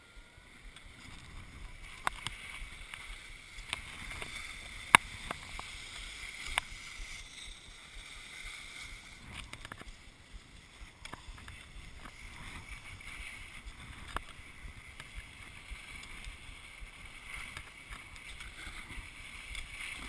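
Gliding over packed snow: a steady scraping hiss with wind on the microphone. A few sharp clicks and knocks break through, the loudest about five seconds in.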